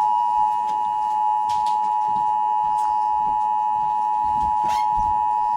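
Emergency Alert System attention signal from a television: a loud, steady two-tone electronic tone that cuts off sharply at the end, just before the spoken alert message begins.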